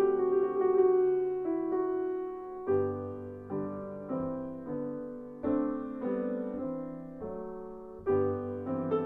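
Piano music: chords struck and left to fade, a new one about every second.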